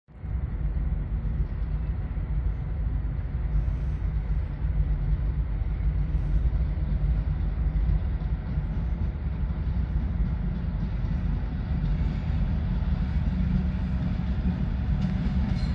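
Diesel locomotive engine of a 2TE10U running out of sight, a steady low drone with faint steady tones above it, getting a little louder toward the end.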